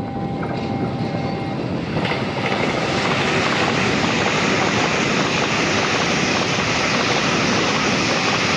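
A Taiwan Railway train passing at high speed: a steady rushing roar of wheels and air that swells about two seconds in and holds, with a faint steady whine before it.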